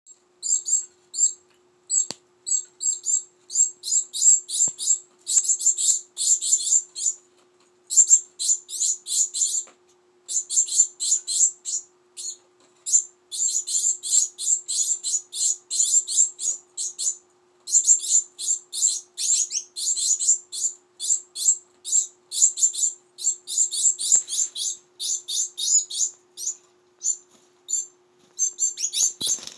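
Young Gouldian finches begging to be fed: long runs of rapid, high-pitched chirps, broken by short pauses.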